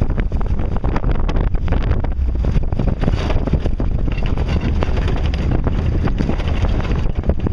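Jeep driving over a rough dirt trail: a steady low engine and road rumble with frequent short knocks and rattles, and wind buffeting the microphone.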